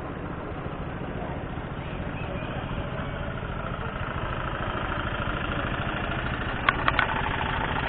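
Boat engine running steadily with a close, even pulsing rumble that grows slowly louder. Three sharp clicks come in quick succession near the end.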